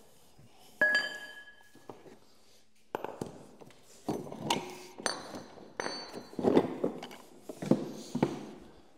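Steel parts of a Porta Power hydraulic spreader kit clanking and clinking as they are handled: one sharp ringing clank about a second in, then a run of knocks and rattles with short metallic rings through the rest.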